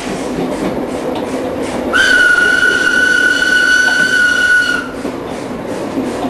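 Steam locomotive whistle blown once, a single steady high note lasting about three seconds and cutting off sharply, about two seconds in. It sounds over the steady running noise of the train heard from inside a passenger carriage.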